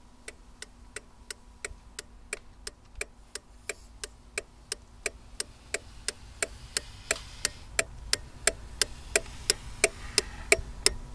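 A 2006 Toyota Camry's turn-signal flasher relay clicking on and off, about three clicks a second. The clicks grow steadily louder toward the end as the listening point closes in on the relay.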